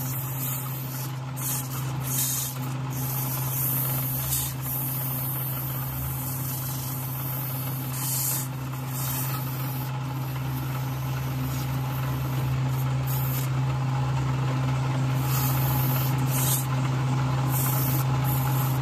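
A steady machine hum runs throughout. Over it come repeated short hissing bursts at irregular intervals, a dozen or so, like blasts of air or spray.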